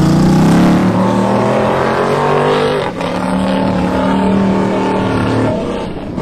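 Race car engine running hard at high revs, its pitch climbing at first, then holding, with a brief dip about three seconds in before it eases off near the end.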